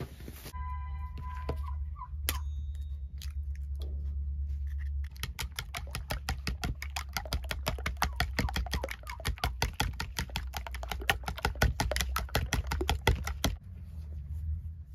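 Metal spoon beating eggs in a bowl, a fast, even clatter of the spoon striking the bowl that stops a second or so before the end.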